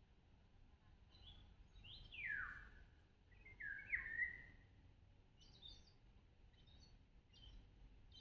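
Birds calling: two clear whistled calls that slide downward in pitch, about two seconds in and again near four seconds, followed by a series of short, high chirps.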